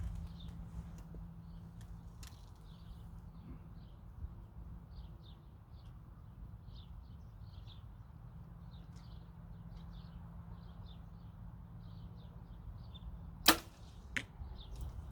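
A bow is shot with one sharp crack about 13 seconds in, and a little under a second later a second, fainter crack is heard as the arrow strikes the target downrange. Birds chirp faintly throughout over a low steady hum.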